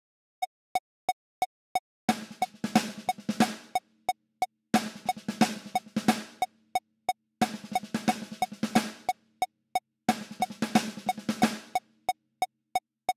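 Roland electronic drum kit's snare voice playing a fast triplet six-stroke roll (R-LL-RR-L sticking with accents) in four short bursts, against a metronome click ticking three times a second (180 BPM). Between bursts the click plays alone for about a bar.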